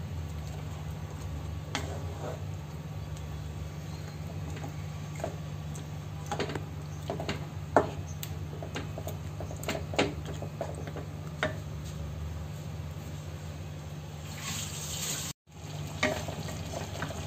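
Wooden spatula stirring fried chicken pieces through a thick, wet masala gravy in a non-stick kadai: soft liquid stirring with a few scattered knocks of the spatula against the pan, over a steady low hum. The sound cuts out briefly near the end.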